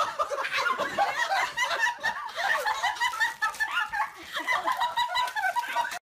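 People laughing hard and continuously, in quick bubbling bursts, cutting off suddenly near the end.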